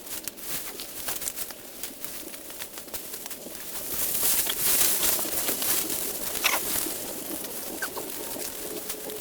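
A bird calling over scattered clicks, with a louder stretch of hiss from about four to seven seconds in.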